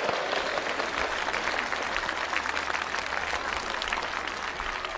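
A crowd of schoolchildren and adults applauding, many hands clapping together, slowly easing off toward the end.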